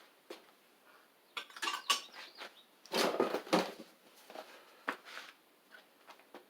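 Metal engine parts clinking and clattering as they are handled and set down, in two bursts about one and a half and three seconds in, then a few lighter ticks.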